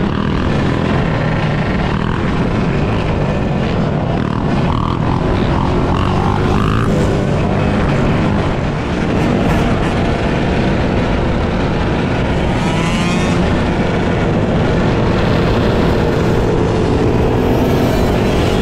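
Engines of a pack of quad bikes and dirt bikes riding together, running and revving in a steady loud mass, with revs rising in pitch over the last few seconds.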